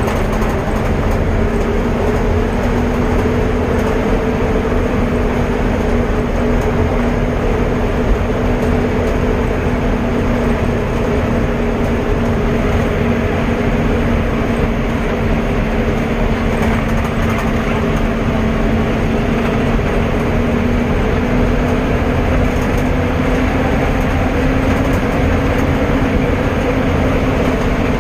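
A vehicle being driven steadily along the road: a constant engine drone, its pitch drifting slightly, over a thick rush of road and wind noise.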